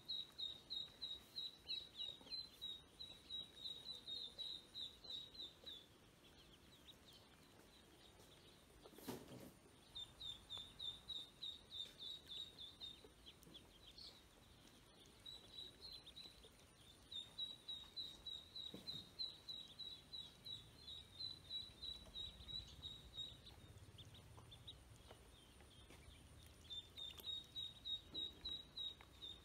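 Ducklings peeping: runs of rapid, high-pitched peeps, several a second, broken by short pauses. There is one brief knock about nine seconds in.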